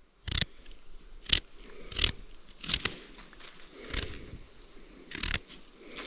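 A series of short, sharp crunches and snaps at close range, about six of them, irregularly spaced.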